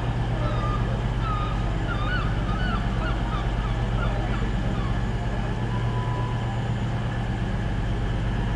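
Steady drone of an idling diesel train engine, with a flurry of short bird calls over the first three seconds or so.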